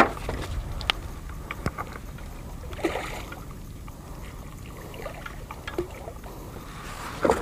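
Water splashing as a hooked fish thrashes at the surface below a bamboo fishing platform, with scattered light clicks and knocks and a steady low rumble. Two brief splashes stand out, about three seconds in and near the end.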